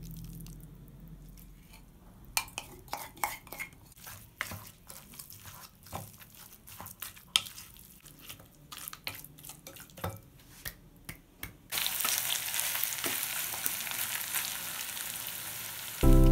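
A wooden spoon scraping and knocking in a glass bowl as the marinated mutton is mixed. About twelve seconds in it gives way to steady sizzling of mutton frying in a pan while it is stirred.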